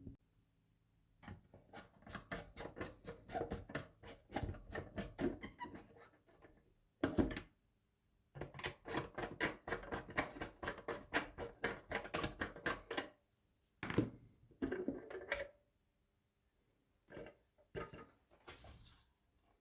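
Arndt MPK 02 fire-alarm program switching unit running its test cycle: fast mechanical clicking, about four or five clicks a second, in runs of a few seconds broken by short pauses.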